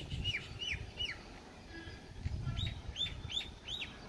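A bird calling in two bouts of short, downward-sliding notes, about three a second: four in the first second or so, then five more in the second half. A low rumble runs underneath.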